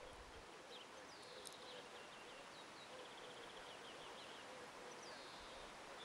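Near silence of outdoor ambience: faint distant small birds chirping in short high runs, over a faint steady hum.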